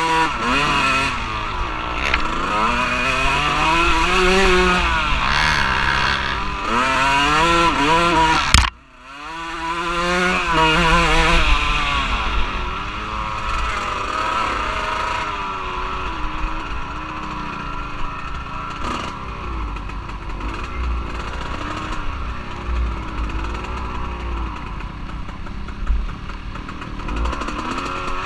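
Off-road vehicle engine, a side-by-side or dirt bike, revving up and down repeatedly as it is driven, with a steady low rumble underneath. The sound drops away sharply for a moment about nine seconds in, then builds back up.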